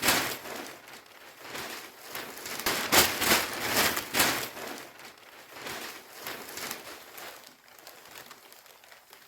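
Paper rustling and crinkling in irregular bursts, busiest a few seconds in and thinning out toward the end.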